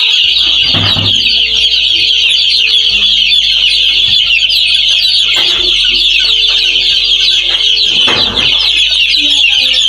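A large batch of newly delivered chicks peeping continuously in a dense, high chorus. A few brief bumps or rustles come through about a second in, midway and near the end.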